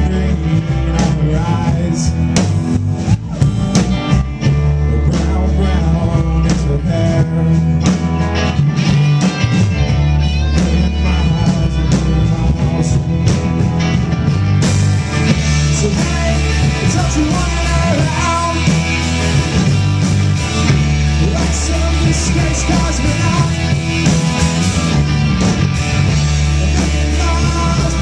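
Live rock band playing an instrumental passage on electric guitars and drums over a steady bass line; the sound turns brighter and busier in the high end about halfway through.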